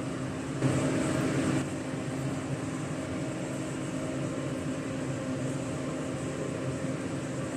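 Steady machine hum with a few fixed low tones, and a brief louder rush of noise about a second in.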